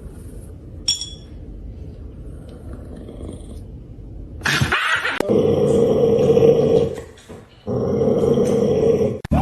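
A dog growling: two long, loud growls in the second half, with a short break between them.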